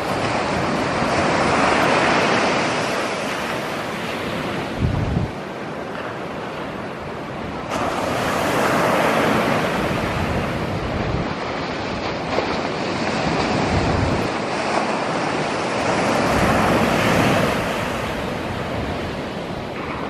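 Ocean surf breaking and washing in, a rush of white water that swells and fades in long surges every several seconds. Gusts of wind rumble on the microphone now and then.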